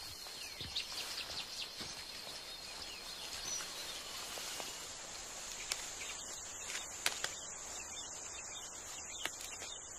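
Forest ambience: a steady high-pitched insect trill, with short bird chirps in the first couple of seconds and a few sharp clicks in the second half.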